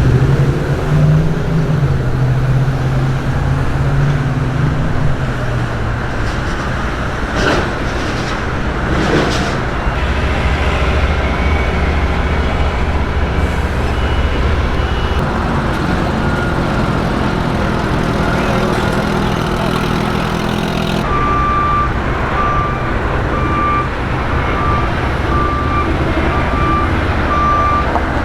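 Heavy construction machinery and trucks running at a large excavation site, a steady engine rumble with a couple of sharp clanks partway through. Near the end a backup alarm starts beeping, a bit faster than once a second.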